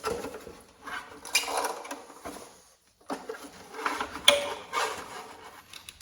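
Plastic clicks and rattles of the light module being unclipped and pulled out of a Porsche Boxster 986 rear light cluster. It comes in irregular bursts of handling noise, with a sharp click about four seconds in.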